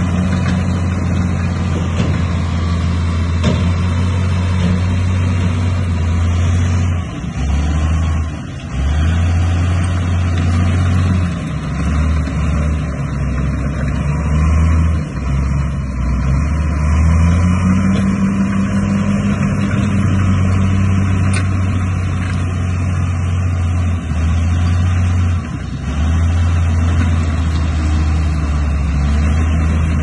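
Bulldozer's heavy diesel engine running loud and steady, its low hum dipping briefly several times.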